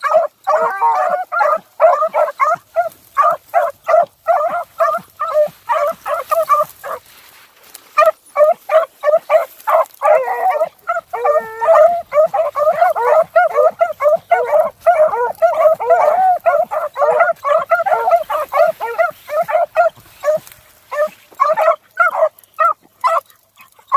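Several beagles baying on a scent trail, in quick, overlapping yelps that run almost without break, with a short lull about seven seconds in.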